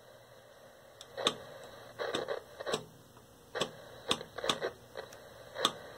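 Irregular sharp snaps and crackles, about ten of them spaced unevenly, from electrical arcing in the shorted deflection yoke of an Admiral PK1369 vacuum-tube television.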